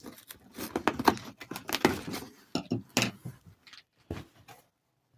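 A cardboard parcel box and its packing tape being torn open by hand: irregular crackling rips and rustles that end about four and a half seconds in.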